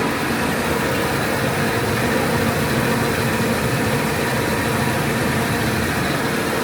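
ATR-320B automatic turret rewinder running steadily: an even machine hum with a few faint constant tones and no breaks or knocks.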